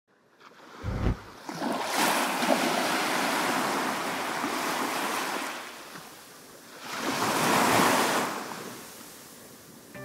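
Sea surf washing onto a beach, coming in two swells: the first builds about two seconds in and holds for a few seconds, and the second peaks near the end. A brief low thump comes about a second in.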